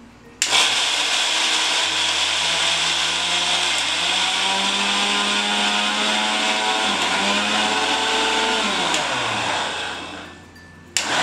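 Electric mixer grinder switched on about half a second in, its motor running steadily as it grinds a dry roasted flaxseed chutney mix in the steel jar. After about nine seconds it is switched off and winds down with a falling whine, then starts again near the end.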